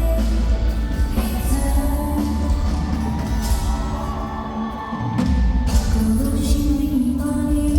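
An amplified pop song over a PA system: a female voice singing over a backing of bass and drums. The bass drops out for a moment a little past halfway, then comes back in.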